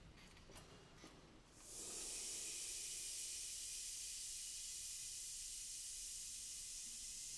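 A quiet hall with a few faint clicks, then about a second and a half in a steady, high hiss starts suddenly and holds evenly.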